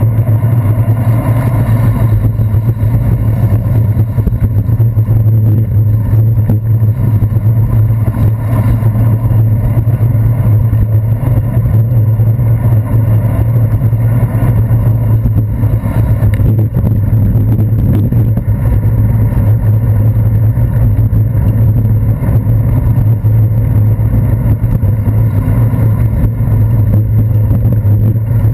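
Steady, loud low rumble of a bicycle riding on wet city streets, picked up through a handlebar-mounted GoPro Hero 2 in its waterproof housing, with the noise of surrounding car traffic mixed in.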